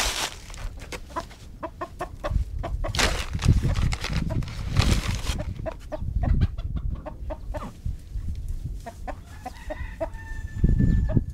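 Domestic chickens clucking in short repeated notes while feeding, with one longer, drawn-out call near the end. Several loud bursts of hiss-like noise come and go over the clucking.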